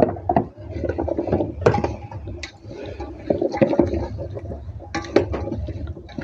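Diced sweet potato cubes tipped from a plastic tub into an aluminium pot, then a wooden spoon stirring the chopped vegetables, with irregular knocks and scrapes against the pot.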